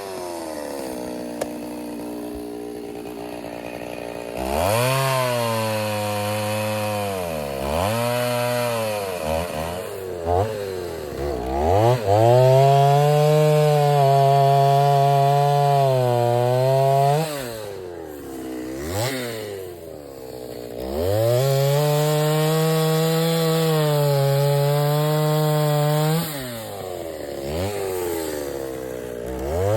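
Stihl two-stroke chainsaw bucking oak logs into firewood rounds. The engine revs up and holds high through cuts of several seconds, the longest from about 12 to 17 s and from about 21 to 26 s, then drops back to idle between cuts.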